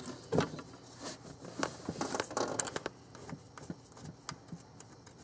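Light, scattered clicks and scrapes of a steel bolt being threaded in by hand into the top mounting hole of a new water pump, with small handling noises around it.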